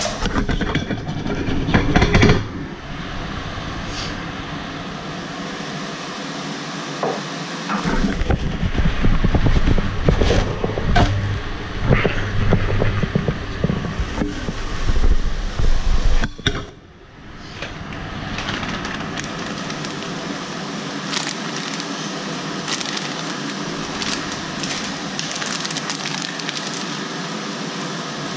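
Thin pancake frying in a pan on a gas hob: steady sizzling with small crackles. It is broken up in the first couple of seconds, and again for several seconds around the middle, by louder rumbling and knocks as the pan is handled and the pancake flipped.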